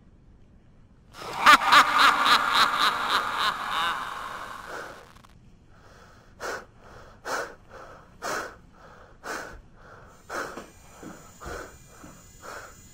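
A man's loud, wheezing laugh lasting about four seconds, followed by short breathy sounds about once a second.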